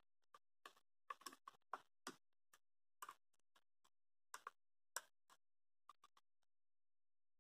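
Faint, irregular clicks and ticks from a small screwdriver turning screws into a plastic outboard-motor throttle handle housing.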